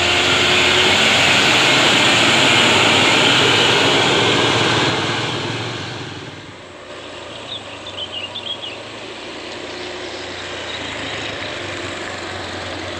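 Loaded Mitsubishi Fuso 220PS six-wheel-drive dump truck passing close, its diesel engine and tyres loud under the weight of the load. About five seconds in the sound drops away to a quieter, steady engine noise from farther off.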